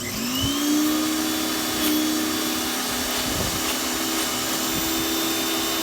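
Bauer 2000 PSI electric pressure washer starting up: its motor hum rises in pitch over the first half second, then runs steady and loud over a constant hiss.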